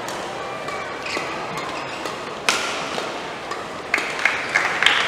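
Badminton hall ambience: a sharp single hit about two and a half seconds in, then from near the end a run of sharp racket hits over a burst of clapping.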